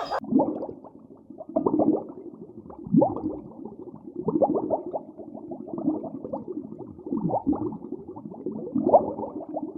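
An animal giving a run of short, low calls, several a second, some sliding in pitch.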